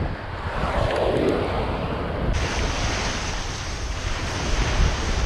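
Wind buffeting the microphone over small surf washing onto a sandy beach, a steady rushing hiss with low rumble. The hiss turns brighter abruptly about two seconds in.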